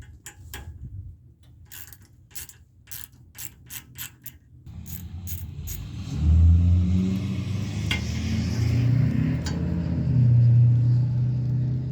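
Hand ratchet wrench clicking in short runs while the mini bike's front fork is taken apart. About five seconds in, a louder low droning sound takes over.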